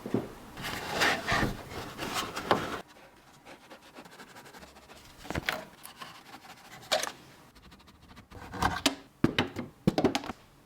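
Irregular clicks, knocks and rubbing of small parts being handled and fitted by hand. There is a busier run of rubbing and knocks for about the first three seconds, then single sharp clicks and a short cluster of knocks near the end.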